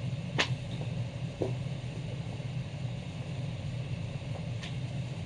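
Steady low hum of the shop's air handling, with a few light taps and clicks as comic books are handled.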